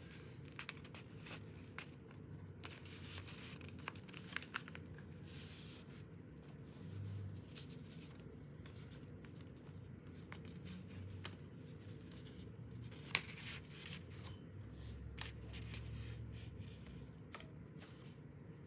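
A sheet of paper being folded and creased by hand: intermittent rustling and crinkling with short crisp snaps as folds are pressed, and one sharper click about two-thirds of the way through.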